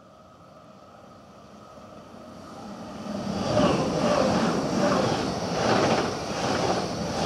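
A modern SBB electric passenger train approaches and passes close by on the near track. It grows from faint to loud over the first few seconds, then its wheels and bogies go by with a rhythmic pulsing about twice a second.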